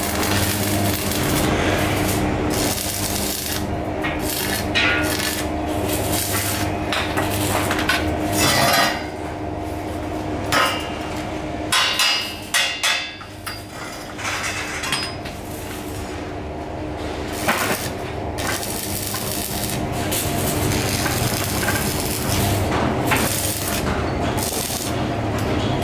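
Electric arc welding on a steel-tube chair frame, running steadily over a low hum, with a pause about halfway through that holds several sharp metal knocks before the welding starts again.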